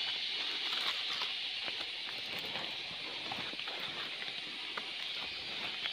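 A steady high-pitched drone of forest insects, with scattered rustles, scrapes and taps of a climber gripping bark and lianas on his way up a tree trunk.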